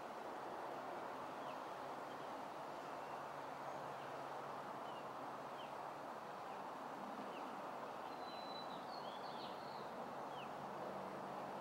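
Outdoor ambience: a steady background hiss with small birds chirping here and there, and a quick flurry of chirps about eight to nine seconds in.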